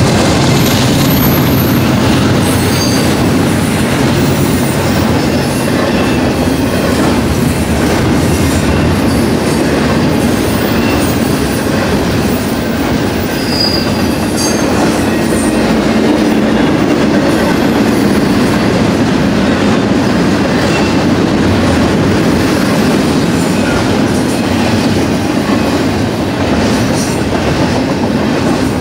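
Double-stack intermodal container well cars of a freight train rolling steadily past, a loud continuous rumble and clatter of steel wheels on rail. Brief high wheel squeals come about 3 seconds in and again about 14 seconds in.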